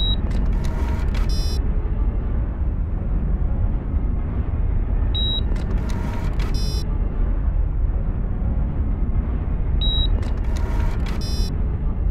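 A steady low rumble inside the submersible. Three times, about five seconds apart, a short high beep is followed by about a second of whirring static and a quick run of clicks: the sub's camera taking a photo and loading the image.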